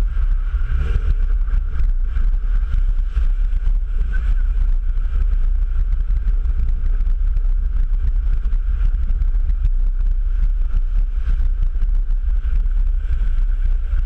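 A four-wheel drive's engine running steadily as it drives through a river crossing, with water rushing and splashing against the front of the vehicle, over a heavy low rumble.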